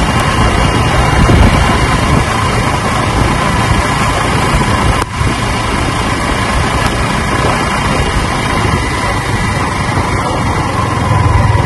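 Riding noise from a Yamaha R15 sport motorcycle on a wet road: a steady rush of wind over the phone's microphone with the engine running underneath, dipping briefly about five seconds in.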